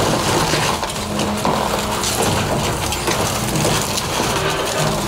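A 40,000-pound excavator's bucket crushing a pile of wood framing and siding debris, with continuous crackling and snapping of breaking wood over the steady running of the machine's engine.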